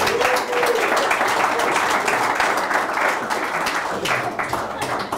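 Audience applauding, a dense, loud patter of many hands clapping that thins out toward the end.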